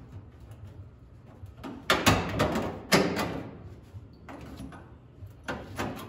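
A sheet-metal patch panel scraping and clanking against the steel floor pan of a 1963 Ford Falcon as it is pressed and worked down into the cut-out opening. There are a few sharp metal knocks, the loudest about two and three seconds in.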